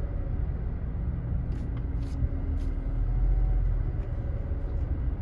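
A 2018 Honda Civic driving, with a steady low rumble of engine and road noise and no brake squeal or grinding to be heard.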